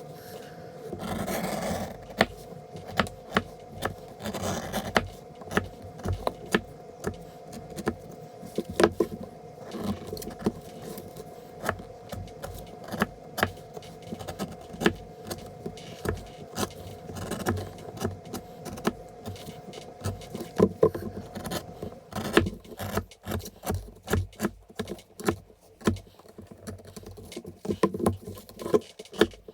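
Irregular taps, clicks and scraping of materials being handled, over a faint steady hum that stops about three quarters of the way through.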